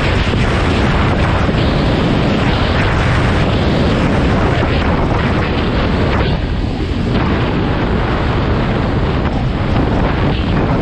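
Heavy wind buffeting a helmet-mounted camera's microphone while riding a quad bike, with the quad's engine running underneath; the rush eases briefly about halfway through.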